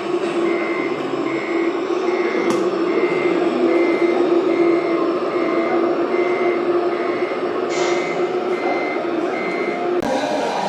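Reversing beeper of a scale RC truck's sound module, giving a steady series of short, even high beeps, about three every two seconds, over a steady low hum.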